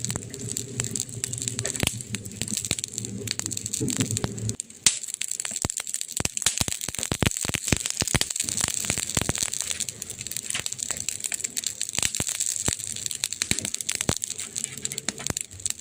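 Wood fire in a fireplace crackling, with many sharp pops and snaps over a steady hiss. A low rumble under it stops suddenly about four and a half seconds in.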